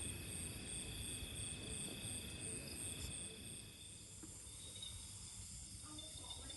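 Insects chirring in a chorus of several steady high-pitched trills, one of them pulsing in rapid even beats, over a low rumbling noise that eases off about four seconds in.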